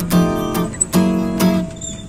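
Background music of strummed acoustic guitar chords, about two strums a second, stopping shortly before the end.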